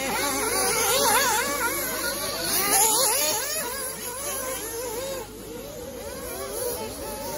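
Several 1/8-scale nitro RC buggies' small two-stroke glow engines racing, each revving up and down with a wailing pitch that rises and falls as the cars accelerate and brake. The overlapping engine notes get somewhat quieter after about five seconds.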